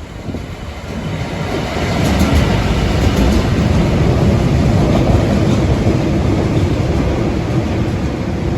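Class 66 diesel-electric freight locomotive working hard as it passes, its two-stroke V12 diesel engine loud. The engine noise builds over the first two seconds as it draws near, then holds steady and loud.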